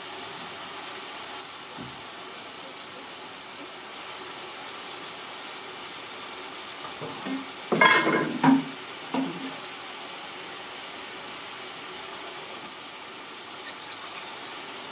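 Steady hiss of a lit gas stove burner heating an aluminium pot of raw mutton and spice paste, with a brief clatter of steel utensils against metal about eight seconds in.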